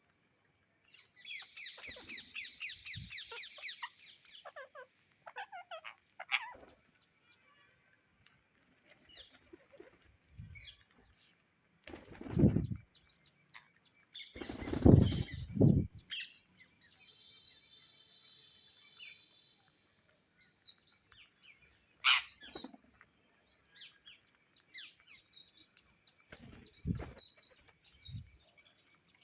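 Indian ringneck parrots chirping and calling: a fast chattering run of high chirps about a second in, then falling call notes, a held squawk and scattered chirps. Loud low rustling thumps come twice around the middle, with a sharp click a few seconds later.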